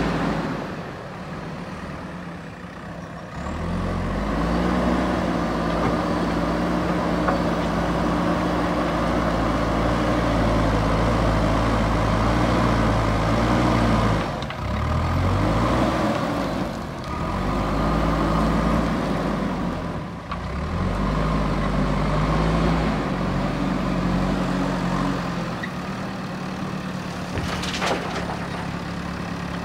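JCB backhoe loader's diesel engine working, revving up and dropping back several times as it scoops and carries gravel. Near the end there is a short sharp noise as the front bucket tips its load into a dump truck.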